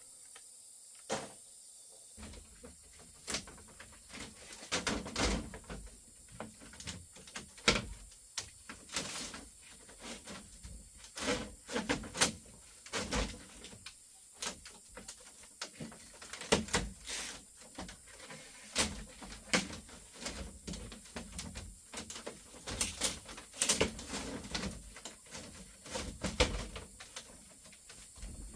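Irregular wooden knocks and clacks of bamboo being worked and handled, some sharper than others, starting about two seconds in.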